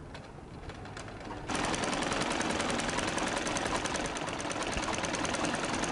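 A few faint clicks, then about a second and a half in a domestic sewing machine starts and runs fast, stitching a hem with a rapid, even rhythm of needle strokes.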